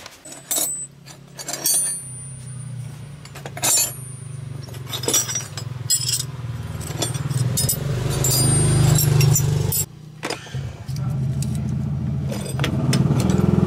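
Low mechanical hum with small metal parts clinking and tapping over it; the hum cuts out for about a second near the middle, then comes back and grows louder near the end.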